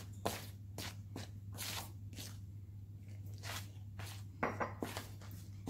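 Hands kneading flour and water into dumpling dough in a plastic bowl: soft, irregular squishing and rubbing strokes, a little louder about four and a half seconds in.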